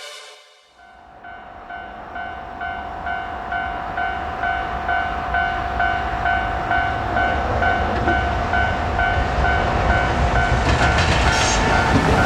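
Japanese level crossing warning bell ringing steadily at about two strokes a second. Under it the rumble of an approaching freight train grows louder, with wheel clatter starting near the end.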